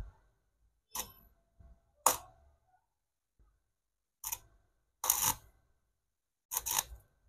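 Arc welder laying short spot welds with a flux-coated stick rod on the steel gear sector of a power-window regulator, rebuilding its broken teeth one spot at a time. There are about six brief crackling bursts with short pauses between them, and two come close together near the end.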